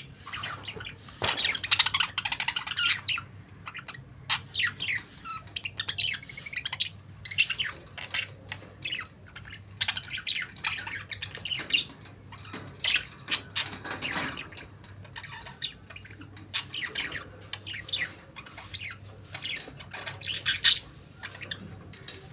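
Budgerigar chirping and warbling: quick runs of short, high chirps and squawks with brief pauses between them.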